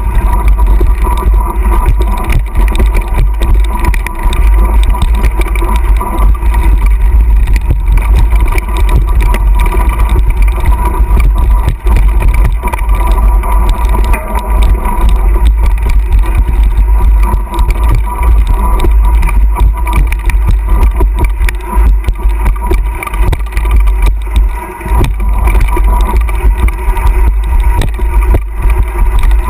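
Loud, steady wind rumble buffeting an action camera's microphone as a bicycle descends fast over a dirt trail, with frequent short knocks and rattles from the bike jolting over bumps.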